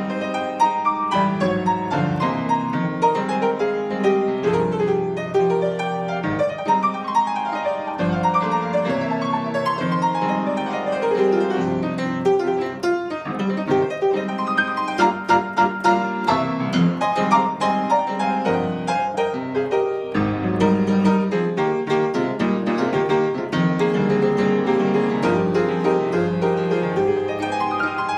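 Solo piano played continuously, many notes sounding together in chords and runs, with a stretch of rapid repeated notes about halfway through.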